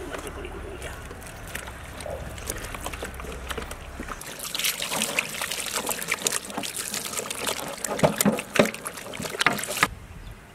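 Wet squelching and slapping of hands rubbing a yellow spice marinade into a whole skinned goat carcass. About four seconds in it becomes a dense run of sharp wet smacks, which stop abruptly just before the end.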